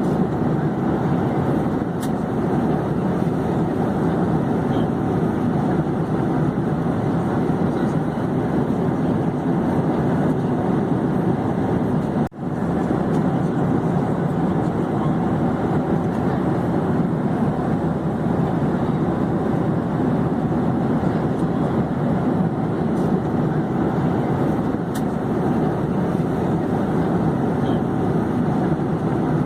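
Airplane in flight: a steady, unbroken rush of engine and airflow noise. It drops out for a split second about twelve seconds in.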